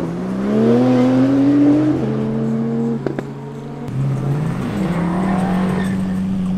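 A car engine accelerating hard, its note rising and then dropping at a shift about two seconds in. After about four seconds a Lamborghini Aventador's V12 revs up and settles into a steady note as the car pulls out.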